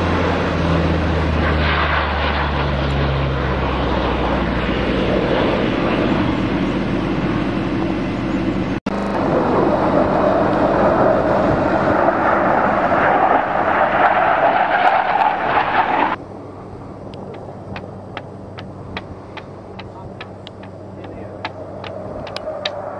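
Aircraft engine noise as a loud, steady rush, cut off abruptly twice where the camcorder recording stops and restarts. After the second cut it is replaced by a quieter hiss with scattered clicks.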